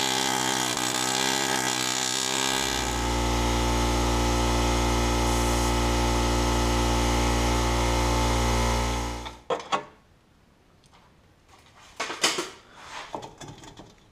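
Pneumatic air chisel (air hammer) running continuously for about nine and a half seconds with a steady buzzing tone that deepens about three seconds in, as it cuts apart the engine-side exhaust flange bolts. It stops suddenly, and a few light knocks follow near the end.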